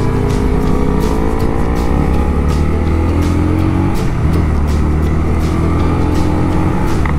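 Honda Rebel 250 motorcycle engine pulling away and accelerating. Its pitch rises steadily through a gear, then drops at a gear change about four seconds in and climbs again.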